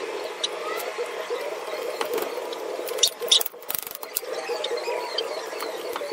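A few sharp metallic clicks and clinks, the loudest about three seconds in, of a washer and nut being fitted onto the axle stub, over a steady murmur of background voices.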